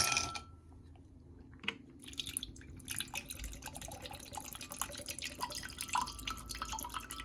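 A sharp knock at the start, then from about two seconds in a dense run of small crackling clicks, like objects being handled close to the microphone.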